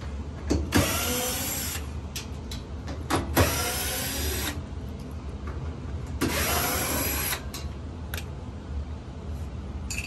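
Cordless drill/driver running in three short bursts of about a second each, its motor whining up at the start of each, while turning screws at the dryer door, with small clicks between the bursts.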